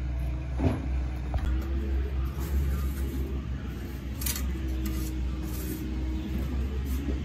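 Steady low rumble with a short knock about half a second in and a sharp clink about four seconds in.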